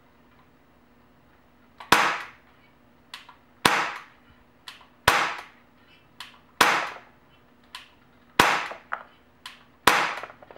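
Gamo GP-20 CO2-powered BB air pistol fired six times in slow, regular succession, about one and a half seconds apart, each a sharp crack with a short tail. Fainter clicks come between the shots.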